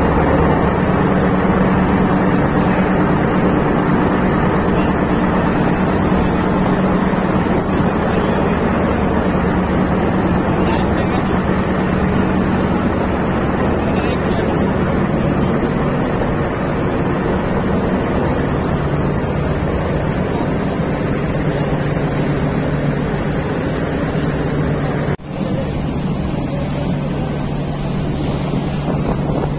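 A boat's engine running with a steady low drone, mixed with rushing water and wind on the microphone. About 25 s in the sound cuts briefly and the engine drone shifts to a lower, steadier note.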